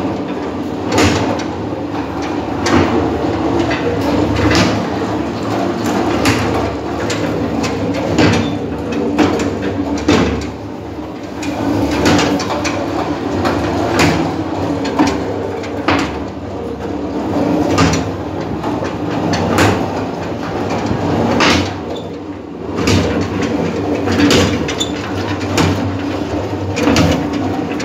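Construction-site noise: a machine engine running steadily under a string of irregular knocks and clanks, about one or two a second.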